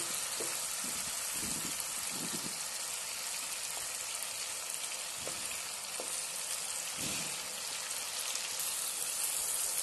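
Chilli-marinated prawns sizzling as they fry in oil in a pan: a steady, even crackling hiss.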